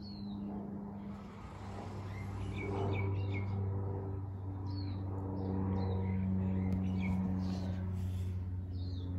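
Small birds chirping now and then over a steady low hum.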